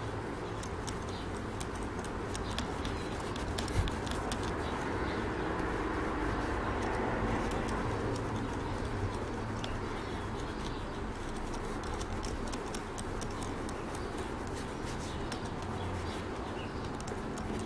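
Cotton ball dampened with water rubbing in small circles over Kiwi Parade Gloss polish on a leather boot toe: a steady, soft rubbing with faint ticks, a little louder in the middle. It is the buffing stage of a spit shine, the water working the hardened wax layer toward a gloss.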